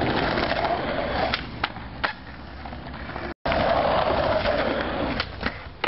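Skateboard wheels rolling loudly on paving, with several sharp clacks of the board hitting the ground. The rolling breaks off abruptly about three and a half seconds in and starts again.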